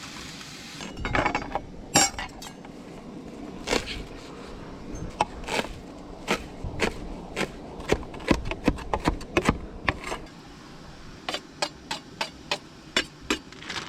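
A cooking utensil clinking and knocking against a metal pot or pan as food is stirred, in irregular strokes that come in quick runs.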